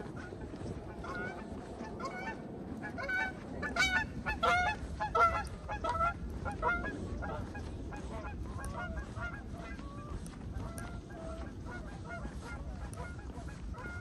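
A flock of geese honking, many short calls overlapping, loudest and most crowded a few seconds in, then thinning to scattered calls.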